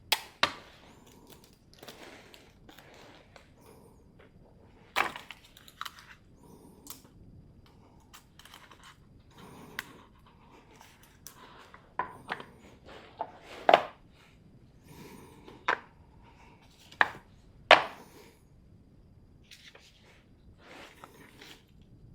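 Irregular sharp clicks and knocks from objects being handled, about a dozen spread unevenly, with softer rustling between them.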